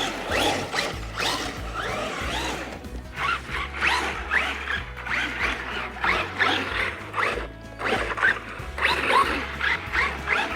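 Traxxas Rustler 4x4 VXL RC truck's brushless motor and geared drivetrain whining in many short rising bursts as it is throttled hard again and again.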